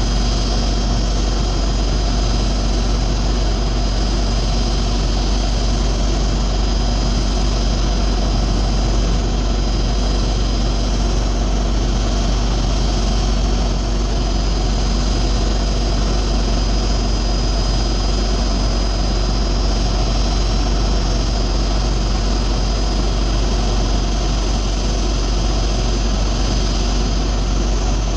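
Steady idling engine drone with a constant high whine over it, unchanging throughout.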